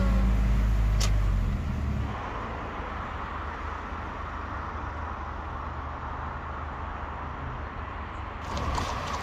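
Engine and road hum inside a moving camper van for about the first two seconds, then an abrupt change to quieter, steady city street noise: a haze of distant traffic. Near the end it grows brighter, with a few sharp clicks.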